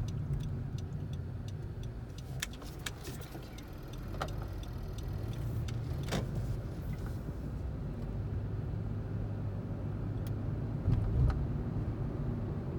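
Cabin noise of a 10th-generation Honda Civic: a steady low rumble with sharp clicks or ticks every few seconds, a little louder about three-quarters of the way through. This is the weird noise from the driver's side that the owner is recording.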